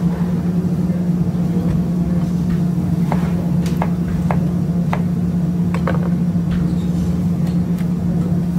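Chopped onions and tomatoes cooking in a large aluminium pot, with scattered light pops and ticks, over a steady low hum.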